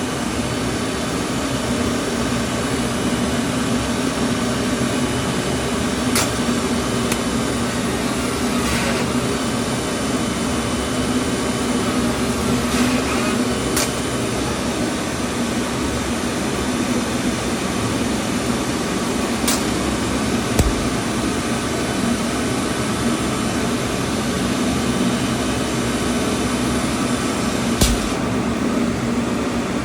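HOLZ-HER Evolution 7405 vertical CNC machining centre running with a steady mechanical hum, with a few sharp clicks and two dull knocks along the way.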